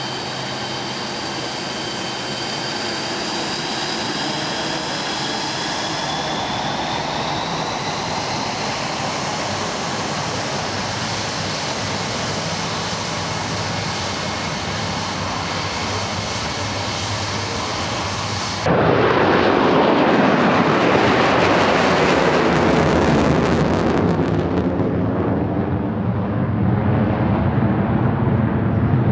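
Saab SK 37E Viggen's Volvo RM8 afterburning turbofan running at low power, a high whine that sinks slightly in pitch as the jet taxis. About two-thirds of the way through it suddenly jumps to the much louder, rough rushing noise of full afterburner as the jet climbs away.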